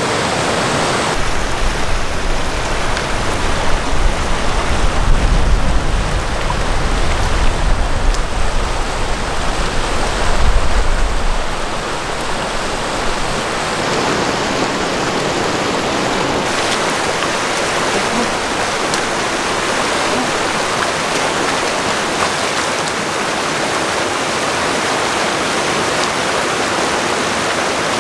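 Rushing creek water pouring over rocks and small cascades, a steady loud roar. For roughly the first eleven seconds a deep, uneven rumble lies under it, then falls away about twelve seconds in.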